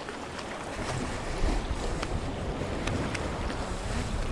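Wind buffeting the microphone with a steady low rumble, over small waves lapping and splashing against jetty rocks, with a few faint clicks.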